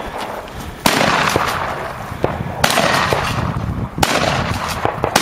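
Three loud rifle shots about a second or two apart, each followed by a long rolling echo, with fainter cracks between them. The rifle is a POF P308 semi-automatic in .308.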